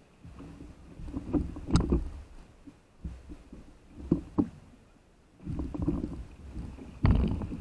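Sea water sloshing and slapping against the nose of a paddle board as it is hand-paddled, in surges every couple of seconds, with a sharper splash near the end.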